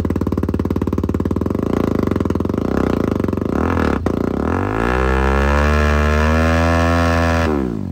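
BMW G 310 GS single-cylinder engine breathing through an Akrapovic slip-on exhaust with the dB killer removed. It idles with a fast, even beat, is blipped once about three and a half seconds in, then is revved up and held for about three seconds before dropping back near the end.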